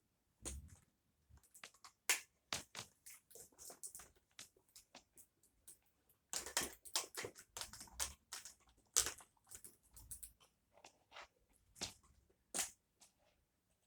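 Irregular clicks, taps and short rattles of an upright Dyson vacuum cleaner's plastic parts being handled, with a denser cluster of clicks about six to eight seconds in.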